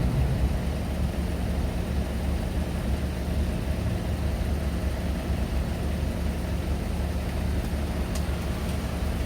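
Steady low hum of a motor vehicle's engine running, with no change in pitch or level.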